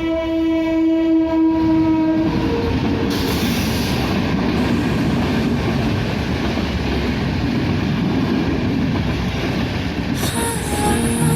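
A train horn blows a steady note for about two seconds, then the train runs past with a loud continuous rumble of wheels on rails. Music begins near the end.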